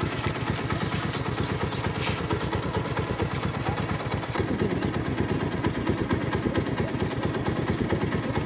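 A small engine idling steadily, with an even, rapid firing rhythm.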